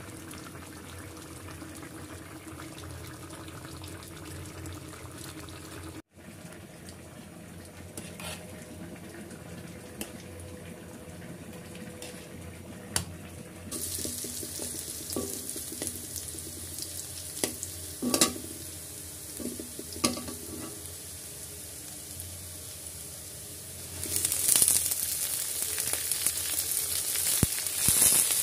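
Sliced garlic, onion and dried red chillies stir-frying in hot oil in a wok, from about halfway through: a steady sizzle, with a spatula knocking on the pan a few times. Near the end, red-stemmed leafy greens go into the hot oil and the sizzle grows louder. Before the frying there is only a quieter steady sound.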